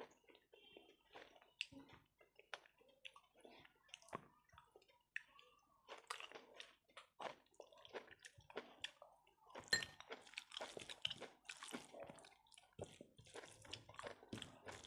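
Faint wet squishing of fingers mixing rice with curry on a plate, along with chewing with the mouth closed: soft clicks and smacks throughout, busier in the second half.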